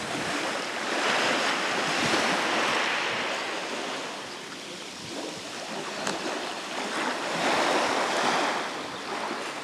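Sea waves washing onto a pebble beach, with two surges about six seconds apart, and some wind on the microphone.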